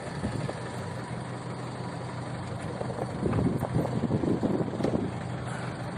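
Boat engine running steadily underway, a constant low hum, with rougher uneven noise coming and going in the second half.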